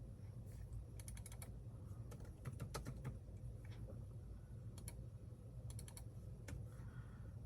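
Typing on a computer keyboard in short bursts of quick key clicks with pauses between, over a low steady hum.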